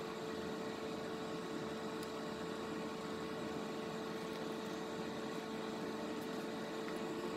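Steady hum with one constant mid-pitched tone over a faint hiss, unchanging throughout; no distinct handling sounds stand out.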